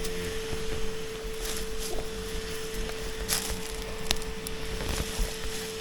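Scattered cracks and clicks as a Japanese giant hornet nest's papery comb is pried apart by hand, over a steady high hum.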